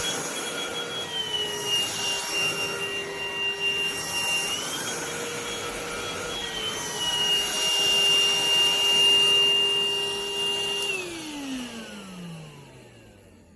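Rowenta XPert 6.60 cordless stick vacuum running, its motor whine shifting up and down between two pitches several times. About eleven seconds in it is switched off and the whine falls away as the motor spins down.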